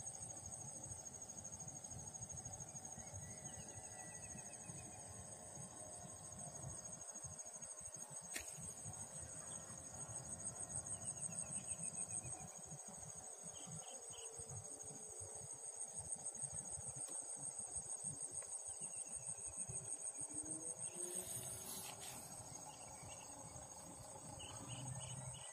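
Insects chirring in a steady high trill, with a low rumble that comes and goes beneath it and a few faint short chirps.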